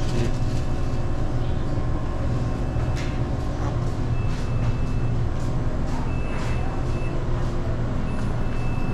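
Steady low mechanical hum of a convenience store's refrigerated glass-door display coolers, with a faint high-pitched beep several times and a few light clicks.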